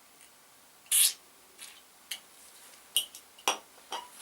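A short hiss of WD-40 aerosol sprayed about a second in, lubricating between a motorcycle handlebar grip and the bar. A few clicks and small squeaks follow as the screwdriver works against the rubber grip.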